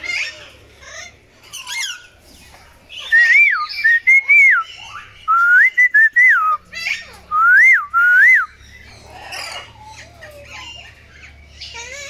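Loud, clear whistling in a run of short rising-and-falling phrases from about three seconds in until past eight seconds, with chirps and squawks from caged parrots and parakeets around it.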